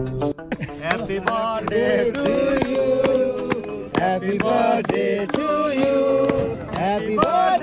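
Male voices singing a melody, with music.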